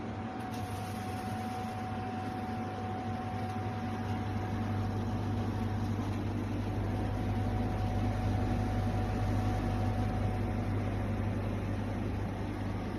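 Portable spot cooler running: a steady low hum with a rush of air from its fan and a faint thin whine above.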